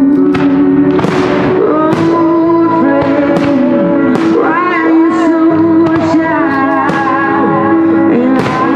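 Loud music with a sung melody, crossed by sharp cracks about once a second from aerial firework shells bursting.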